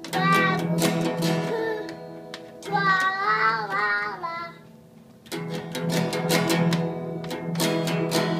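Small child strumming a child-size acoustic guitar over and over on the same ringing open-string chord, and singing loudly in a wavering voice for a stretch in the middle while the strumming pauses.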